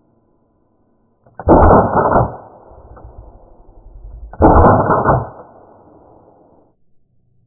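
Two shots from a Tokyo Marui Desert Eagle gas blowback airsoft pistol, slowed down so each short crack stretches into a deep, dull boom lasting nearly a second, the two about three seconds apart, each trailing off slowly.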